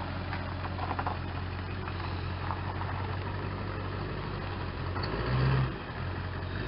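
Tow vehicle's engine running at low speed while backing up a trailer, a steady low hum that swells briefly about five seconds in.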